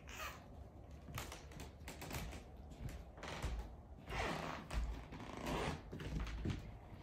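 Light, irregular clicks and scuffs of a small long-haired chihuahua's paws and claws climbing a carpeted dog bed ramp, with a few louder rustles in the middle.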